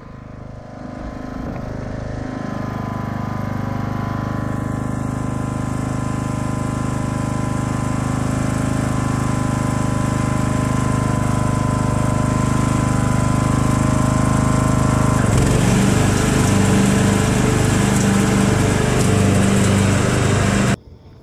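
Riding lawn mower engine running, growing louder over the first few seconds. About 15 seconds in its sound changes and the low note turns uneven. It cuts off abruptly near the end.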